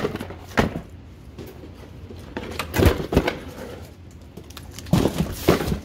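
Boxed kitchen goods being shifted and set down inside a cardboard box: scattered knocks and cardboard thumps, one about half a second in, a cluster about three seconds in and another near the end.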